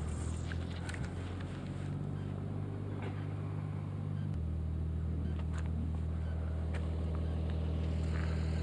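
An engine running steadily at idle, a low even hum that steps down in pitch about four seconds in.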